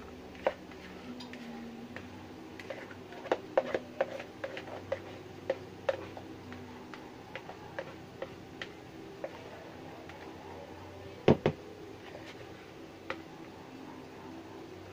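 Spatula scraping and tapping against the rim of a plastic mixing bowl while meringue is scraped out: scattered light clicks, with two louder knocks about eleven seconds in. A faint steady hum runs underneath.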